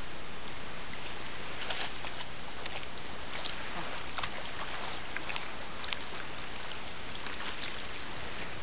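A dog swimming and paddling through shallow water: a steady wash of splashing and lapping, with small sharp splashes scattered throughout.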